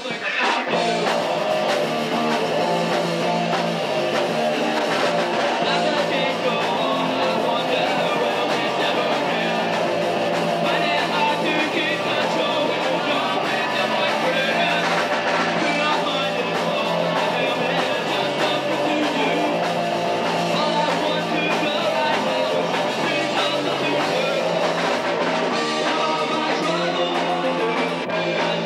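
A rock band playing live, with guitar and singing.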